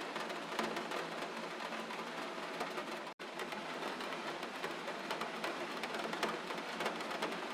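Steady rain: an even hiss full of small drop ticks, broken by a split-second dropout about three seconds in.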